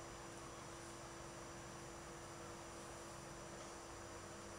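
Quiet room tone: a faint, steady hum with a low hiss and no distinct events.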